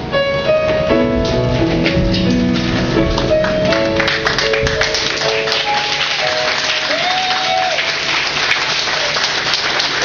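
Piano or keyboard accompaniment playing a melody of held notes. About four seconds in, audience applause builds up and takes over as the music fades under it.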